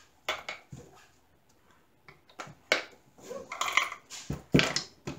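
Coins dropping into a wooden-framed piggy bank and knocking against the wood as the box is handled and tilted: a string of separate clicks and light knocks.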